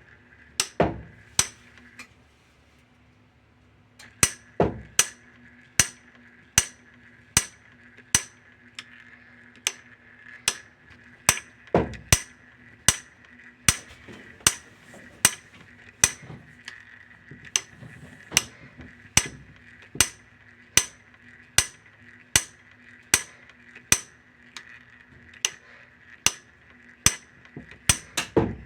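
Top-load washing machine clicking over and over, about one sharp click every 0.7 seconds, over a steady faint hum. The clicking is the sign of a failing shift actuator, which the owner replaces along with the splutch cam.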